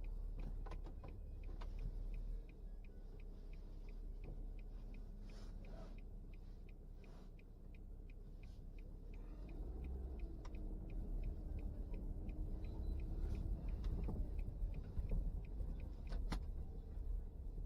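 Low engine and road rumble heard inside a car. A turn signal ticks evenly, about two to three times a second, for the first half. About halfway through, the engine note rises and the rumble grows louder.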